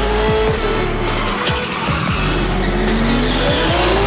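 Drift cars' engines revving, their pitch rising and falling, with tyres squealing as two cars slide sideways in tandem. Background music plays underneath.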